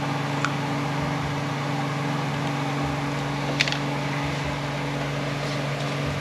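Steady machine hum, a constant low drone, with two light clicks: one about half a second in and one a little past three and a half seconds.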